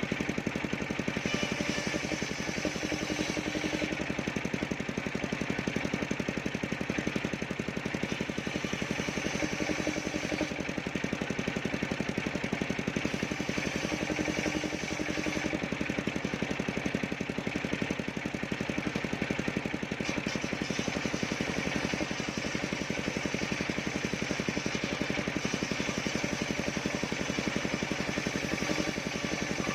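Engine driving a portable circular sawmill, running steadily with a fast, even pulse.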